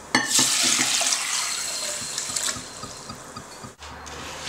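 Water running into a bowl of whole mung beans for rinsing, a loud hiss at first that tails off after about two and a half seconds.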